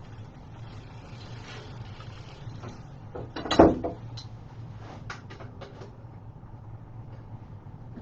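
Bike parts or tools being handled during assembly: one loud clatter about three and a half seconds in, then a few light clicks, over a steady low hum.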